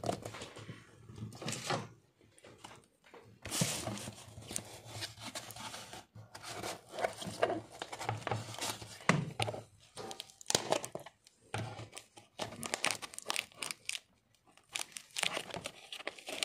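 Clear plastic stretch wrap on a cardboard parcel being slit with a metal blade and torn open. It goes in irregular bursts of crinkling, tearing and scratching against the cardboard, with short pauses between.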